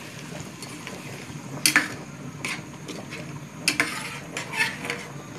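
Tomato sauce being stirred in a pan, the utensil knocking and clinking against the pan several times, most often near the end.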